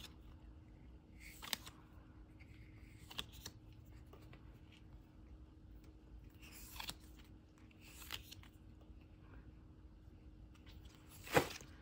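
Stiff photo cards sliding and flicking against each other as they are leafed through by hand: short, faint papery flicks every second or two, with one louder flick near the end.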